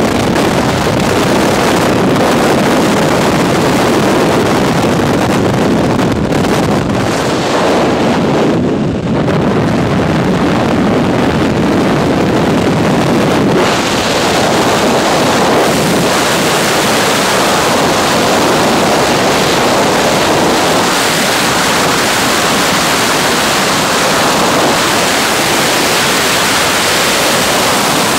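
Loud, steady rush of freefall wind buffeting a skydiver's helmet-mounted camera microphone. About halfway through the sound changes abruptly and turns hissier.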